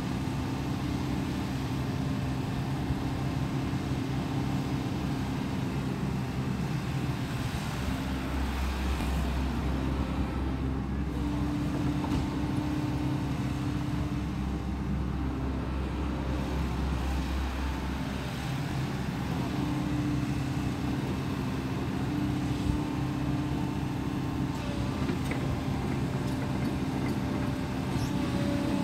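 Tracked hydraulic excavator's diesel engine running steadily while the boom, arm and swing are worked. A deeper low rumble comes in about eight seconds in and drops away about ten seconds later.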